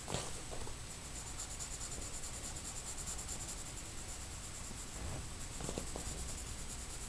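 Pencil scratching on drawing paper in rapid back-and-forth shading strokes, with a few soft knocks of the hand against the paper.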